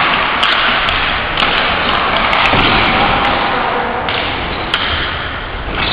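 Ball hockey in an echoing gym: hockey sticks and the ball knocking against each other and the floor, several sharp knocks over a steady din of play.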